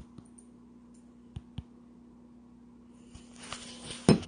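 A few light clicks of things being handled over a faint steady hum, then rustling that builds near the end and a single loud knock.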